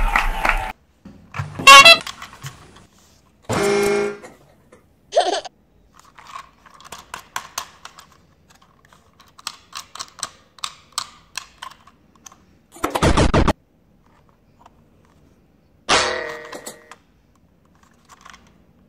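Several separate short honk-like tones, the loudest about two seconds in, with light clicking and tapping in between as a plastic toy train is handled and turned over.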